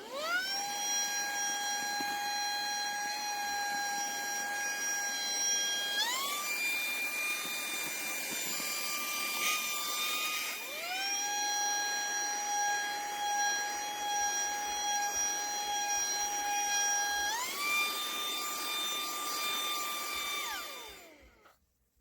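Litheli LiteVac Mini cordless handheld vacuum running, its high motor whine over airflow hiss. It spins up with a rising whine and steps up in pitch about six seconds in, consistent with switching from its 6000 Pa to its 10000 Pa suction mode. It cuts out briefly at about ten seconds, spins up and steps up again, then winds down with a falling whine near the end.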